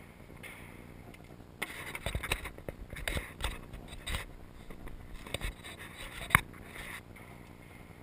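A shotgun being handled at the shooting station: a run of short metallic clicks and rattles, then one sharp snap about six seconds in.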